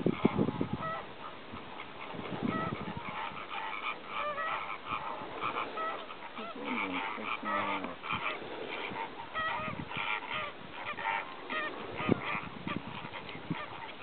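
A feeding flock of greater flamingos calling: a continual chatter of many short, overlapping honking calls.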